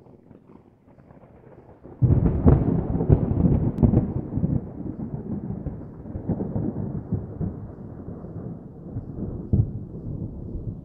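Intro sound effect: a deep, thunder-like rumble with crackles. It is faint at first, jumps loud about two seconds in, then slowly fades.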